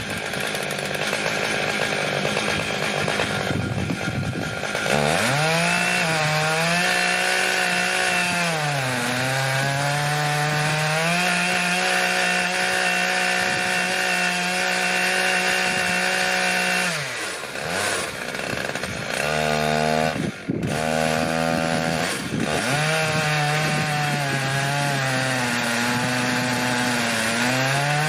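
Stihl MS880 two-stroke chainsaw with a 59-inch bar ripping a red oak log lengthwise on an Alaskan chainsaw mill. The engine climbs to high revs about five seconds in, then its pitch sags under load in the cut and recovers several times, briefly dipping twice near the middle.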